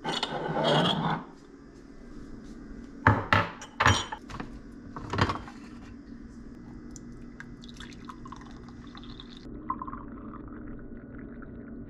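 A rushing scrape for about a second at the start, then several sharp clinks of a ceramic mug and the glass carafe of a drip coffee maker about three to five seconds in, and hot coffee poured from the carafe into a ceramic mug near the end.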